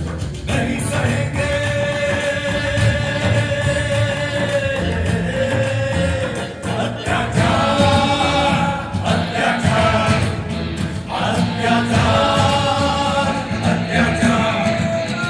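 Show soundtrack music: voices sing long held notes, like a choir, over a dense low pulsing accompaniment.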